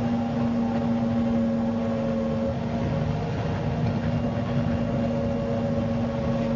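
MCW Metrobus double-decker bus running, its engine holding a steady, unchanging note with a constant hum over the drone.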